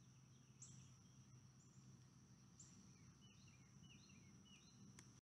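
Near silence, with faint bird chirps in the background: a few short rising and falling notes over a faint steady high tone. The sound cuts to dead silence right at the end.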